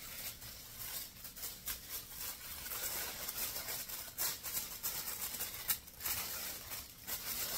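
Tissue paper rustling and crinkling as a small wrapped item is unwrapped, with a few sharp clicks of handling.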